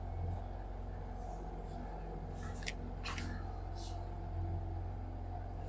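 Quiet room tone carrying a steady low electrical hum, with a few faint clicks in the middle.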